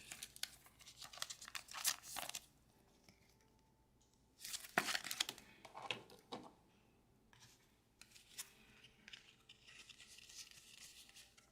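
Baseball card packs and cards being handled: crinkling and tearing in three short spells, with near-quiet gaps between them.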